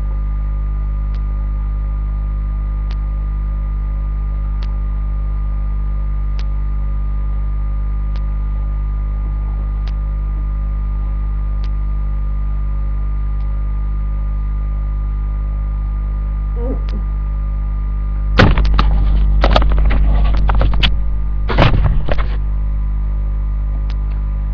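Steady electrical mains hum with faint ticks about every second and a half to two seconds. Near the end, loud crackling clatter for about two seconds, then a shorter burst a moment later.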